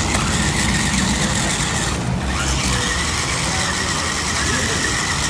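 Toy remote-control stunt car's small electric motors and gearbox whining as it drives, with a steady high-pitched whine.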